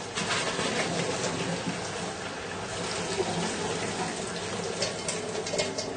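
Pork pieces simmering in a cream sauce in a frying pan on the hob: a steady hiss with faint crackles.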